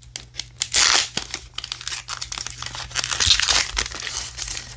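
Baseball card pack wrapper being torn open and crinkled by hand: a run of crackling rustles, loudest about a second in and again around three seconds in.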